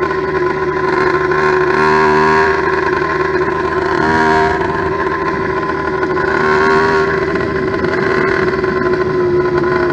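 Freshly built 89.7cc steel-bore two-stroke motorized-bicycle engine running, its pitch rising and falling a little with the throttle; the new engine is still being broken in.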